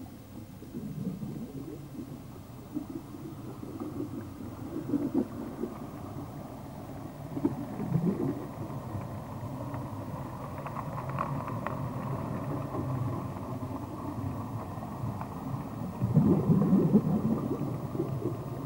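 A low, rough rumbling noise with no steady pitch, swelling and easing several times. It is loudest near the end.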